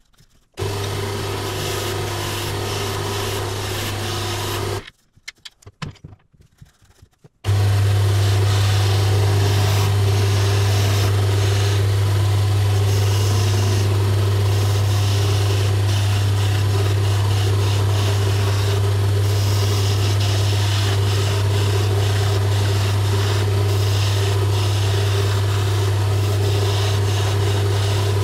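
Wood lathe running with a steady low motor hum while a skew chisel planes a spinning spindle blank, shavings hissing off the wood. The sound stops abruptly about five seconds in and comes back louder two to three seconds later.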